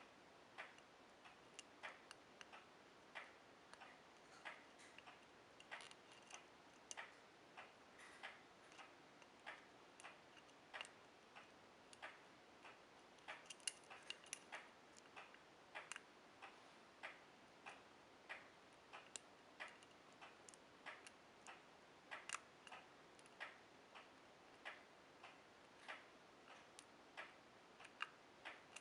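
Light metal clicks of a hook pick working the pins of a standard pin-tumbler deadbolt cylinder under tension, two or three clicks a second, some in quick clusters.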